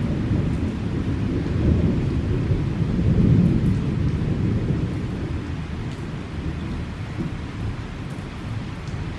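Rolling thunder rumbling low, swelling about three seconds in and then slowly fading, over steady rainfall.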